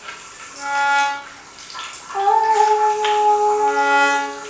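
Self-playing reed instruments sounding sustained tones: a chord swells and fades about a second in, then a note slides up into pitch a little past two seconds and holds over other notes until it fades near the end. A faint watery hiss lies underneath.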